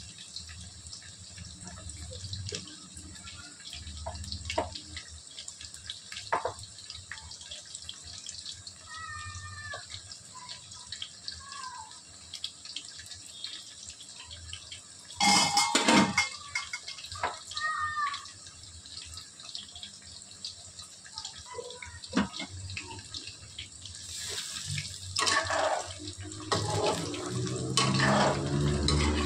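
Chicken pakoda pieces deep-frying in hot oil in a steel kadai: a steady sizzle of bubbling oil. There is a short loud noise about halfway, and near the end a slotted spoon knocks and stirs the pieces in the oil.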